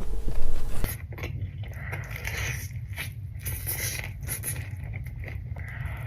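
Pizza being chewed, with irregular crunching and scraping mouth noises, louder in the first second.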